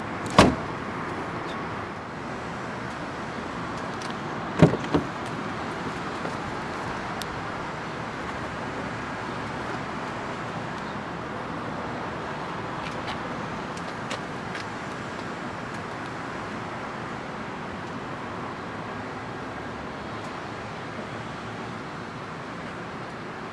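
The trunk lid of a 2008 BMW 550i slammed shut about half a second in, then another sharp knock with a smaller one right after, about four and a half seconds in. Steady traffic noise underneath.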